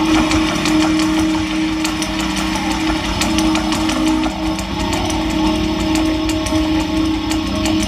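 Live experimental electronic noise music from a laptop and electronics setup: a steady low drone under a dense, grainy, crackling noise texture with rapid clicks, at a constant loud level.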